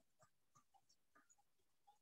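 Near silence, with a few faint short clicks and taps.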